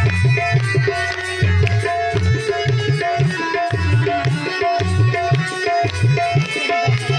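Devotional music: tabla played in a steady rhythm, its deep bass-drum strokes prominent, with an electronic keyboard holding and repeating melody notes.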